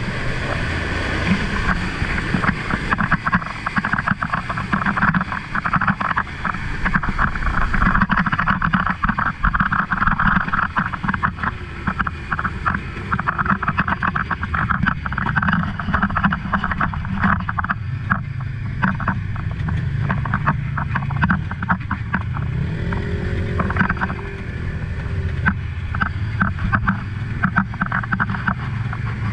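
A Honda side-by-side UTV's engine runs steadily while it drives through shallow river water. The tyres churn and splash the water in a dense, crackling wash over the engine drone.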